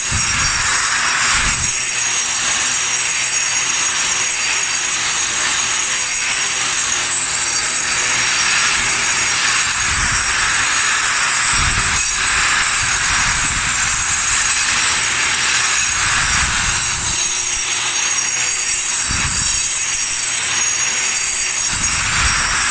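Electric grinder grinding down concrete around a floor drain. It runs steadily with a high motor whine over a gritty scraping noise, and a brief low rumble comes a few times as the wheel bites.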